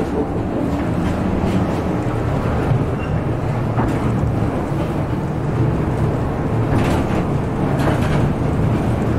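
Babbacombe Cliff Railway funicular car running down its track, a steady low rumble heard from inside the car, with a few faint knocks.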